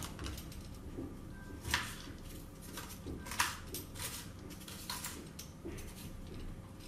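Kitchen knife knocking on a cutting board while an onion is chopped: a handful of sharp, irregular knocks, the loudest about two and three and a half seconds in. A vegetable peeler scrapes faintly on a potato.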